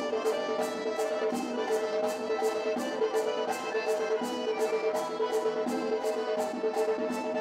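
Circassian folk dance tune: an accordion plays held chords and melody over a sharp, steady beat about four times a second.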